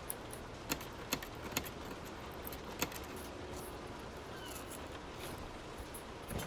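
A few sharp light clicks of metal handling, four in the first three seconds and one more at the end, over a steady faint hiss.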